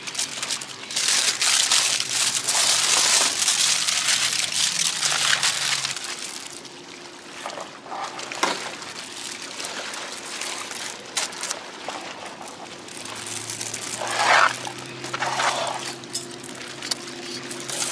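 Aluminium foil crinkling and crumpling as it is folded around a banana-leaf-wrapped fish, loudest for the first several seconds, then quieter handling with a few sharp clicks.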